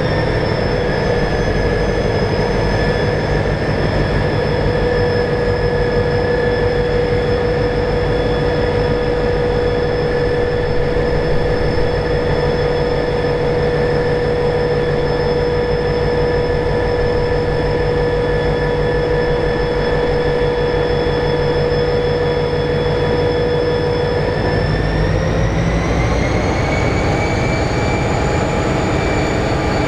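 Pacific National 81 class diesel-electric locomotive, with its EMD two-stroke V16 engine, running with a steady low rumble and a whine over it. About 25 seconds in, the engine speeds up and the whole sound rises in pitch, then holds steady.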